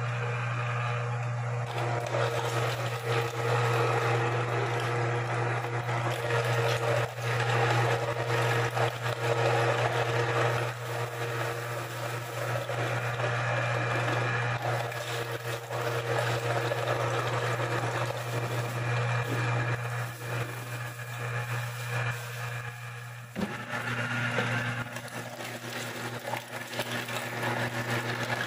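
Electric meat grinder running with a steady motor hum while raw chicken heads and necks are fed in and ground, the grinding noise rising and falling irregularly over the hum. About 23 seconds in the grinding noise eases and a higher steady hum joins the motor.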